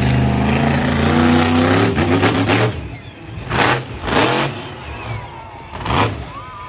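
Monster truck engine revving hard with a deep, loud note that climbs a little and drops off after a couple of seconds, then three short, sharp bursts of sound over the next few seconds.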